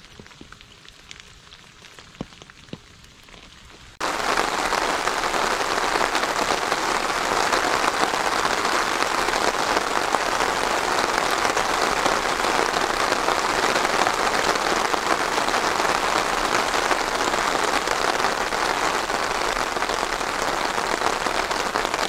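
Steady rain, a dense even hiss of falling drops, cutting in suddenly about four seconds in; before that only a faint quiet with a few light ticks.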